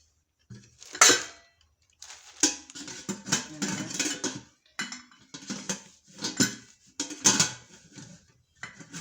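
Stainless steel stovetop pressure cooker being handled: a series of metal clanks and scrapes of the pot and its lid, the loudest about a second in.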